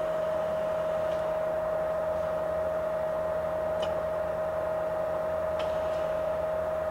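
Ganesh GT-4480 heavy-duty engine lathe running, a steady machine whine over a low hum from its drive and gearing, with a few faint clicks.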